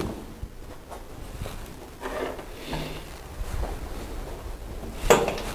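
Handling noise of small tools at a workbench: soft rubs and rustles, with one short, sharper noise about five seconds in.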